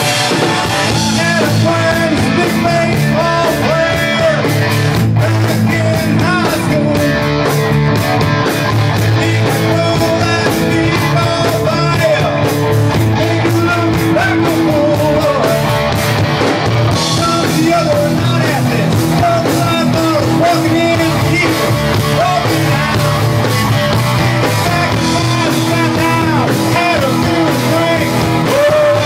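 Live rock band playing, with electric guitars, keyboard and drums at a steady, loud level.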